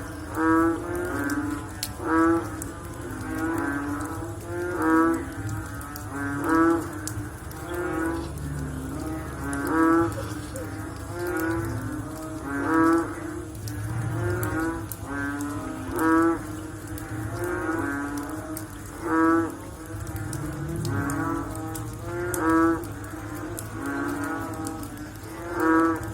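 Frogs croaking in a chorus after rain: many overlapping low, pulsed calls, with a loud call repeating every couple of seconds over the others.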